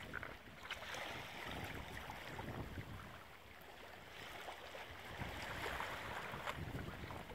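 Small waves lapping in the shallows, with wind buffeting the microphone; the noise eases briefly in the middle.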